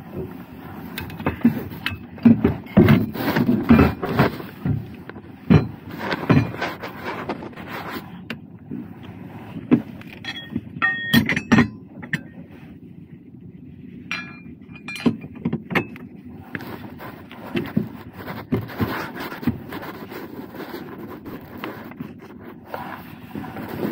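Hand-handling noise of a part being refitted: irregular knocks, clicks and rustling, with a few short metallic clinks about ten to twelve seconds in.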